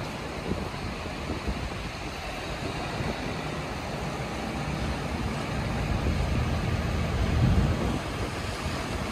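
Steady low rumble of many tractor diesel engines running in a crowded yard, mixed with a dense rushing of wind on the microphone.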